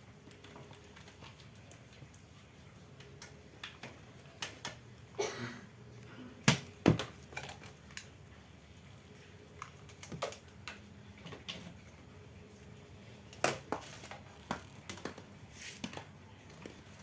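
Irregular light clicks and taps of small hard objects being handled, with two sharp knocks close together about halfway through.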